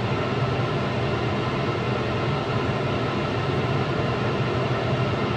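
Steady whooshing of a laminar flow hood's blower fan running, with a low hum underneath.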